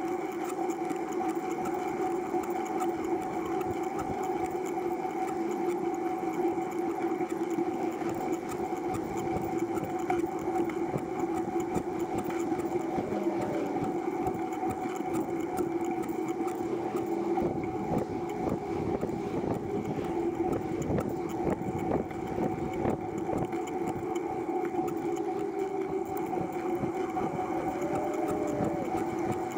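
Recumbent trike rolling along asphalt: a steady mechanical whir from its chain drivetrain and tyres, with scattered light rattles in the second half.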